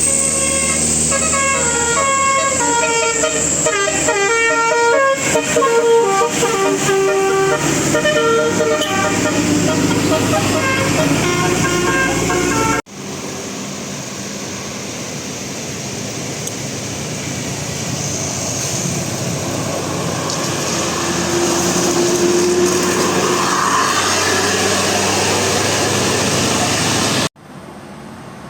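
A bus's 'basuri' telolet musical horn playing a fast melody of many short notes stepping up and down in pitch. About halfway through it cuts off suddenly, and steady vehicle engine and road noise follows.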